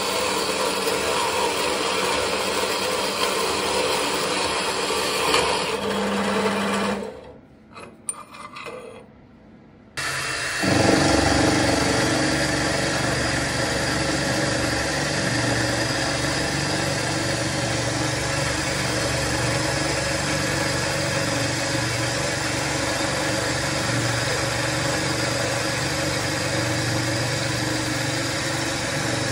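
Vertical band saw running and cutting through a metal bar, stopping about seven seconds in. After a short quieter gap, a milling machine starts about ten seconds in and runs steadily with a low motor hum while a gold-coloured end mill cuts the metal.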